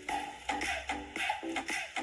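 Background music with a quick, steady percussive beat and short pitched notes.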